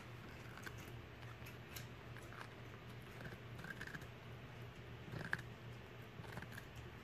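A poodle chewing and gnawing on a raw cucumber: faint, irregular wet crunches, with one louder crunch about five seconds in.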